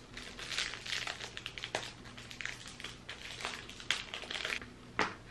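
Thin plastic wrapping crinkling and crackling as it is worked off a pair of makeup brushes, with a few sharper clicks along the way.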